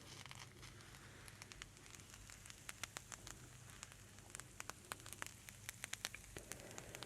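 Soft, close-miked ASMR crackling: a quick, irregular patter of small clicks and pops that grows denser after about two seconds.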